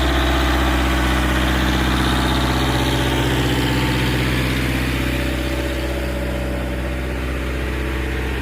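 Diesel engine of a Fiat Agri 70-90 DT tractor running steadily under load while hauling a loaded grain trailer up a steep slope. It eases slightly in loudness in the second half.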